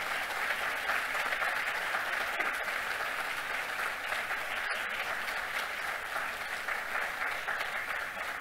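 Audience applauding, a steady patter of many hands clapping that eases slightly toward the end.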